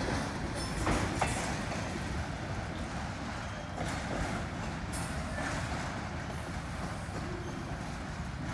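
Freight train's autorack cars rolling along the track, a steady rumble of steel wheels on rails with a few sharp clicks about a second in, as the tail of the train moves away.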